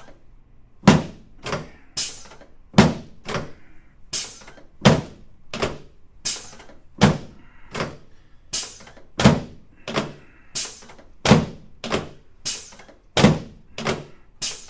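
Repeated knocking thunks from a chiropractic adjusting table during an SI-joint adjustment, with the patient lying face down. They come at an even pace of about one and a half a second, each heavy thunk followed closely by a lighter knock.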